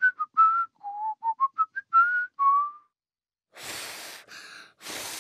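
Whistling through pursed lips: a short tune of about ten quick, clear notes stepping up and down. About a second after it ends come two or three breathy puffs of air with no tone, a failed attempt at whistling.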